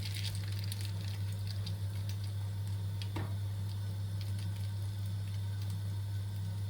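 A steady low hum with light scattered ticks and a single clink about three seconds in.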